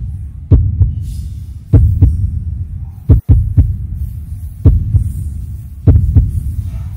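Background soundtrack of a slow, heartbeat-like deep double thump repeating about once every 1.2 seconds over a low hum.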